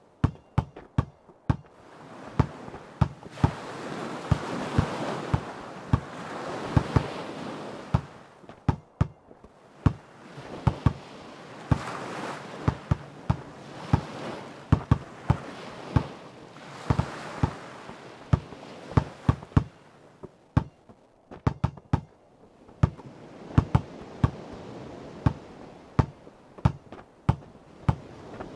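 A basketball bouncing again and again in an uneven dribbling rhythm, sometimes in quick runs of bounces. Under it, ocean waves wash in and out, swelling and fading every few seconds.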